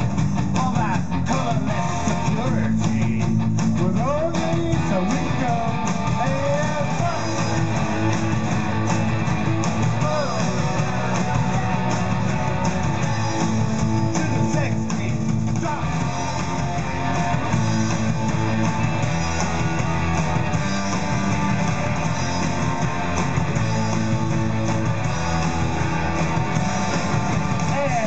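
Live rock band playing, electric guitars to the fore over bass and drums, steady and unbroken.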